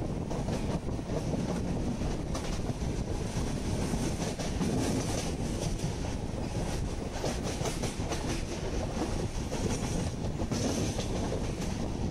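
Moving passenger train heard from alongside its coach: a steady rumble of wheels on rails, with clicks and rattles through the middle.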